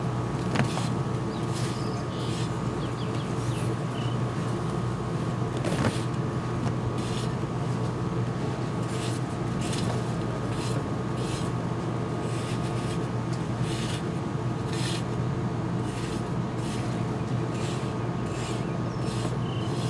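Flat metal sand trowel scraping and shaving damp packed sand off a sand tower in short, irregular strokes, with one sharper click about six seconds in. A steady low hum runs underneath.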